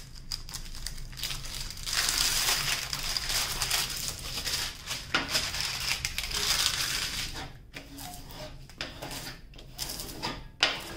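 Clear plastic cover film on a diamond painting canvas crinkling and rustling as it is smoothed flat and pressed down with a rod. The rustling is steady and loudest from about two seconds in until about seven, then turns into lighter scattered rustles and taps.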